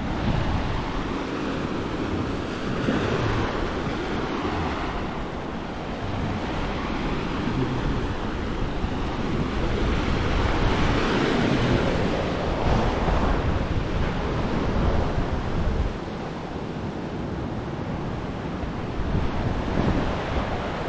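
Ocean surf breaking and washing over the rocks of a rocky cove, rising and falling in slow surges, with strong wind buffeting the microphone.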